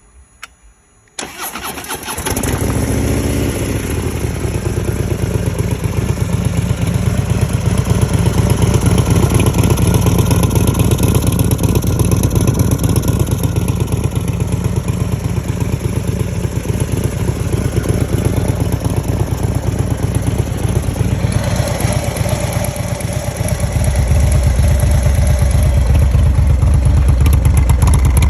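2016 Harley-Davidson Dyna Low Rider S's Twin Cam 110 V-twin is started through an MCJ 2-into-1 exhaust with its valve closed in quiet mode: a few clicks, the starter cranking about a second in, then the engine catches and idles steadily. Near the end the idle changes and its low rumble grows louder.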